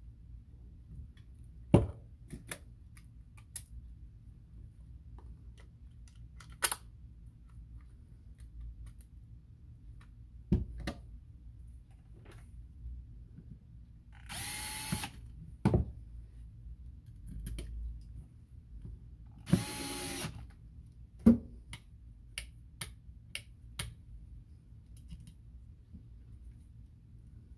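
A cordless drill-driver spinning against a fishing reel's side plate in two short whirring bursts, each about a second long and a few seconds apart. Scattered sharp clicks and knocks of small metal parts and tools being handled come between them.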